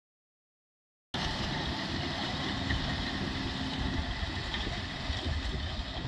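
Silent for about a second, then a John Deere 6215R tractor's engine cuts in abruptly, running steadily under load as it pulls a Kverneland plough, with a strong low rumble.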